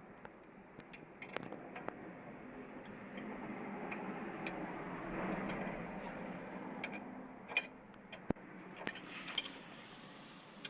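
Scattered light clicks and taps over a steady background hum that swells in the middle and then eases off.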